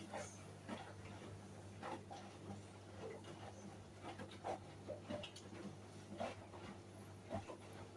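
Hoover washing machine running quietly at the end of its rinse: a steady low motor hum with irregular soft clicks and knocks from the drum.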